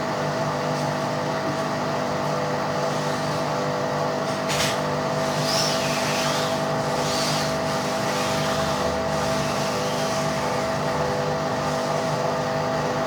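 Daewoo washing machine running with a steady motor hum, a sharp click about four and a half seconds in, and two brief swishes a second or so later.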